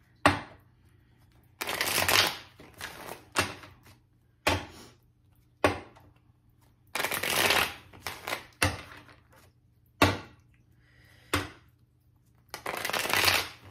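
A tarot deck being shuffled by hand: about three rustling shuffles of roughly a second each, with short sharp card snaps and knocks in between.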